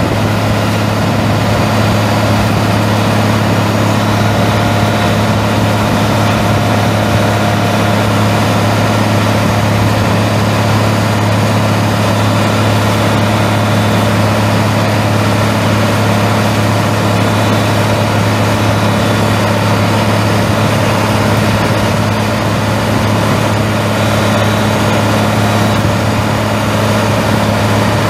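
Caterpillar six-cylinder turbo diesel engine of a horizontal grinder running at a steady speed, a constant low hum with no change in pitch.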